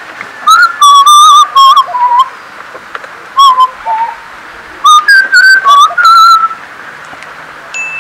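A person whistling a tune loudly in three short phrases of wavering notes, with pauses between.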